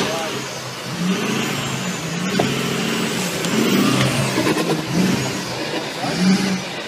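Off-road pickup truck's engine revving hard again and again, its pitch rising and falling, as the truck climbs a steep dirt bank with its wheels spinning and throwing dirt. A couple of sharp knocks come about two and a half and four and a half seconds in.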